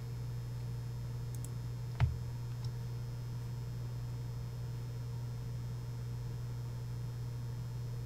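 Steady low electrical hum, with one sharp click about two seconds in and a fainter click shortly after.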